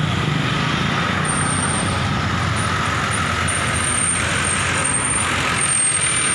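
Road traffic of cars and motor tricycles passing, a steady mix of engine and tyre noise, with a thin high tone coming and going from about a second in.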